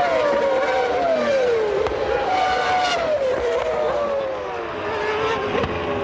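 Formula One car's V10 engine running at high revs, its note falling in pitch in two long sweeps and then climbing again near the end.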